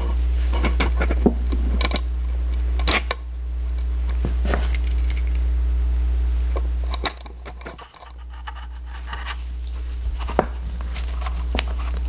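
Light metallic clicks and rattles of a small screwdriver and small drive-mounting parts being handled. Under them runs a steady low hum that dips briefly about two-thirds of the way through.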